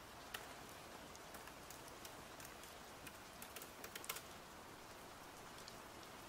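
Fingers typing on a MacBook laptop keyboard: scattered key clicks with a quick run of them about three and a half to four seconds in. A steady faint hiss of rain runs underneath.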